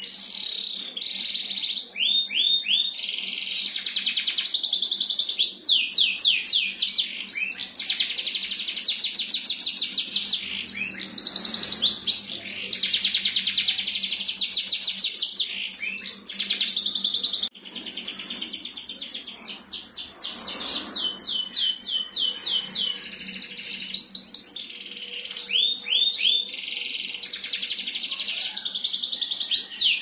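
Domestic canary singing a long, continuous high-pitched song of fast rolling trills, mixed with sweeping notes that rise and fall, breaking off briefly about halfway.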